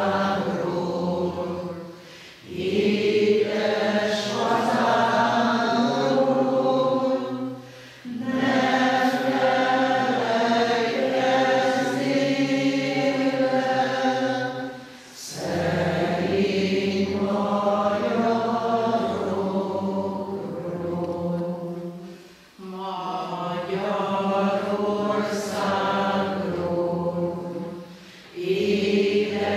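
A church congregation singing a hymn together, unaccompanied, in long held phrases with short breaks for breath between them.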